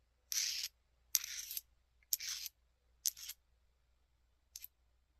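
Jasper stone arrowheads being struck and scraped against one another: five short strokes, each a sharp click trailing into a brief gritty scrape, the last one fainter near the end.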